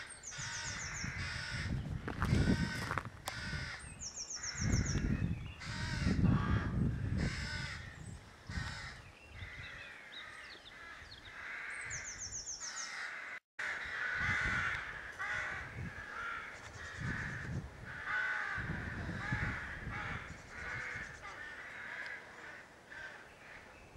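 Crows cawing over and over, many harsh calls overlapping, with low rumbles of wind on the microphone now and then. The sound cuts out for a moment about halfway through.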